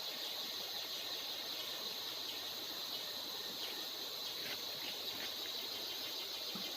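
Steady, high-pitched insect chorus droning without a break, with a few faint clicks in the middle.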